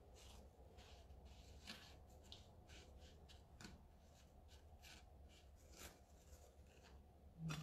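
Faint, irregular scratchy rustles of fried pastry strips being pressed and turned in granulated sugar in a ceramic dish.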